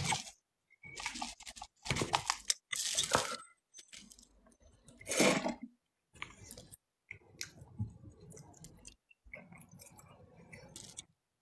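Irregular rustling, crunching and clinking handling noises, coming in separate bursts with short gaps. The loudest bursts come about a second in and again about five seconds in.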